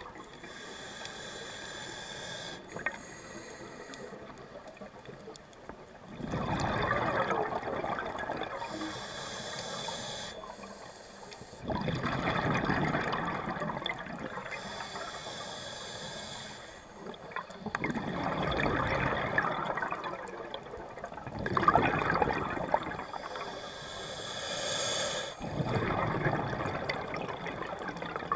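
Scuba diver breathing through a regulator underwater: short hissing inhalations alternating with louder bubbling rushes of exhaled air, about four breaths.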